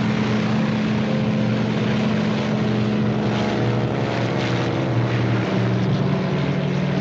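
Twin-engine propeller airplane taking off, its engines running steadily.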